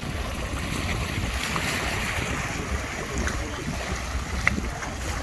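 Wind buffeting the microphone in a steady, rumbling rush, with a few faint clicks, the clearest about four and a half seconds in.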